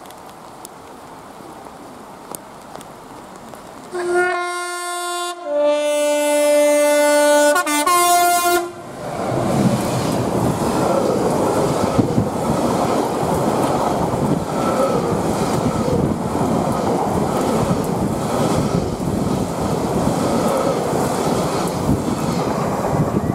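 Freight train's horn sounding a two-tone call of about four seconds: a high note, a longer low note, then the high note again. The train then runs through at speed, its wagons rumbling and clattering over the track.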